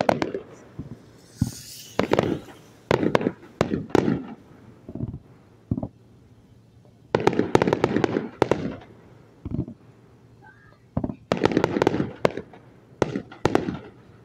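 Fireworks display: shells and fountains firing in volleys of sharp bangs and crackles, each volley a second or two long, with short lulls between.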